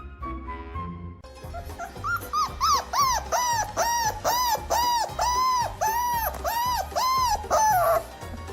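A dog giving a run of short whining yelps, each rising then falling in pitch, about two a second, over background music.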